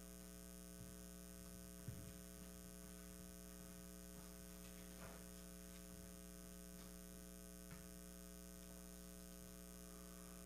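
Near silence with a steady electrical mains hum, broken by a few faint knocks about two, five and eight seconds in.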